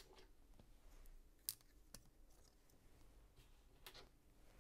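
Plastic LEGO pieces clicking as they are handled and pressed into place: one sharp click about a second and a half in, and fainter ones about half a second later and near the end.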